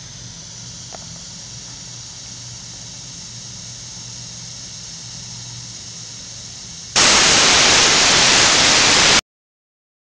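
Water spraying from a rocket-engine injector plate at about 400 psi in a cold flow test: a steady hiss. About seven seconds in it jumps to a much louder rushing hiss for about two seconds, then cuts off abruptly.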